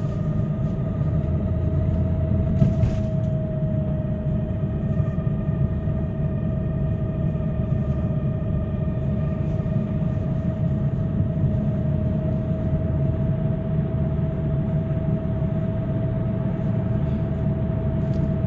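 Hyundai Creta under way, with steady low road and engine rumble and, above it, a steady whining squeak that holds one pitch throughout. The owner finds this squeak grows louder under throttle and is unaffected by braking.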